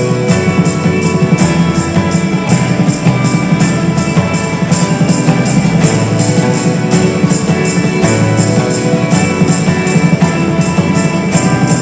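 Live rock band playing an instrumental passage with a steady beat, bass and guitar, with tambourine or jingle-type percussion jangling on the beat.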